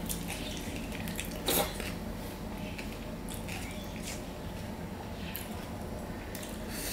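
Hand-eating sounds: soft wet squishes and small clicks as fingers mix and squeeze mashed potato and red lentil dal on a steel plate, with one louder click about a second and a half in.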